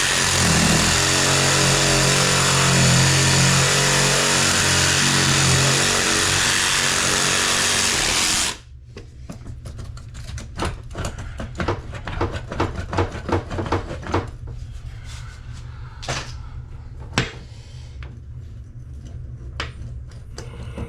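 Power saw running steadily, cutting through a faucet's rusted-on mounting nut, then stopping suddenly about eight seconds in. A run of light clicks and knocks follows.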